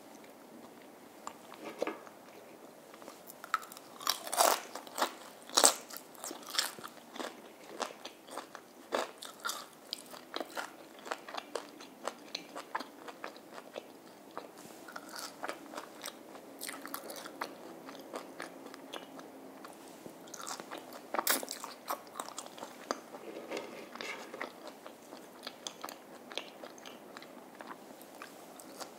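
Close-miked biting and chewing of crispy fried food, mainly french fries dipped in cream sauce: a long run of separate crunches, loudest about four to six seconds in and again around twenty-one seconds.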